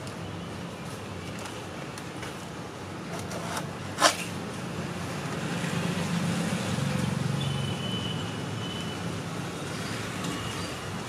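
Steady street traffic noise, swelling louder about six seconds in, with a single sharp click about four seconds in.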